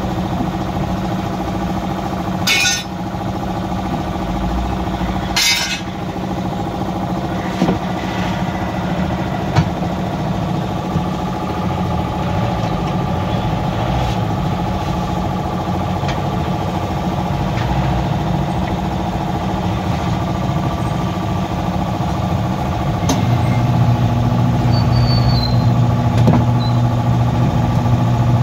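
An engine or motor running steadily, with two short blasts of hissing air a few seconds in. Near the end a deeper, stronger hum comes in on top.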